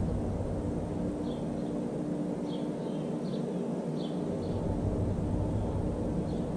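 Steady low mechanical hum with a few faint short bird chirps scattered through the middle.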